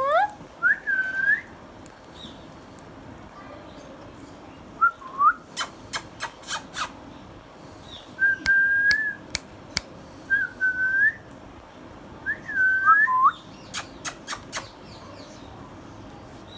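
Indian ringneck parrot whistling: several short whistles that rise and bend in pitch, with pauses between them. Two quick runs of sharp clicks come about halfway through and near the end.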